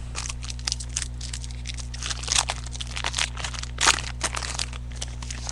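Trading card packs and cards being handled: irregular crinkling and rustling of foil pack wrappers and cards, with one louder crackle near the end.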